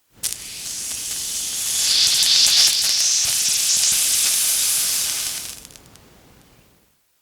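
Water sizzling on a hot surface: a hiss that starts suddenly, swells to its loudest two to three seconds in, then dies away near the end.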